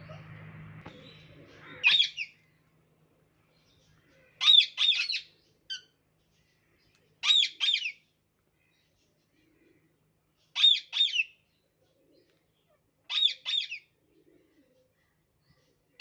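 Parrot calling: short groups of two or three harsh, arching screeches, repeated about every three seconds with silence between.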